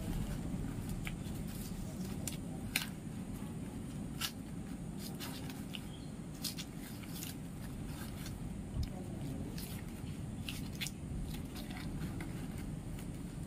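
Coconut palm leaflets rustling and crackling as a half-woven frond mat is pulled and pressed to tighten the weave, with irregular sharp crackles over a steady low rumble.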